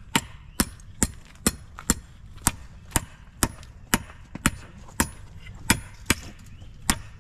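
Steady blacksmith's hammer blows on a heated metal rod over an anvil, about two a second, each a sharp metallic strike with a short high ring, as the rod is hammered around into a bend.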